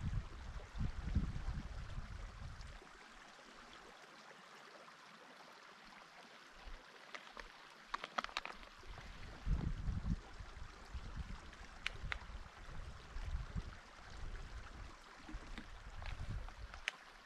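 Wind buffeting the microphone in uneven gusts over a steady faint hiss. It drops away for several seconds in the middle and picks up again, with a few light clicks here and there.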